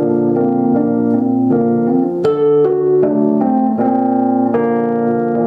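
Live band music in an instrumental passage, led by an electric keyboard playing held chords that change every second or so, with a sharp accent about two seconds in.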